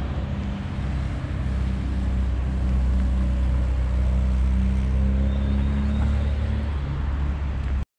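A motor vehicle's engine running steadily, with a deep rumble of road noise. It cuts off suddenly near the end.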